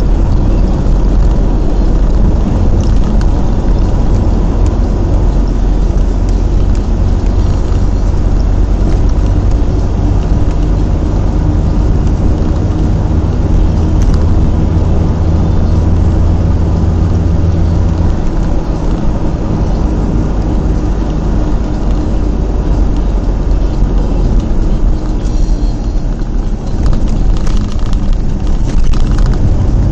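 Engine and road noise of a moving car heard from inside the cabin: a loud, steady low rumble. The engine's deepest hum drops away a little past halfway.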